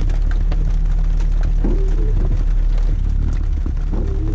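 Windshield wipers sweeping the wet glass about every two seconds, each sweep a short rising moan, over a steady low engine idle, with rain tapping on the windshield and roof, heard from inside the vehicle's cabin.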